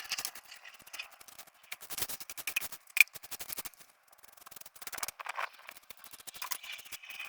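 Bursts of short, scratchy scraping strokes and small clicks from debris being cleaned off a tiled patio surface, with one sharp tick about three seconds in.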